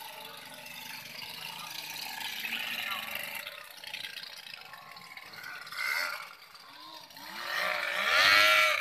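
Outboard motors of small racing boats running and revving as the boats pull away, their pitch gliding up and down; the loudest surge comes near the end.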